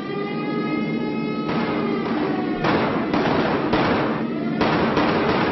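A wailing siren-like tone over a steady low drone, broken about a second and a half in by a rapid series of gunshots and blasts, roughly two a second, from soldiers firing up at attacking aircraft.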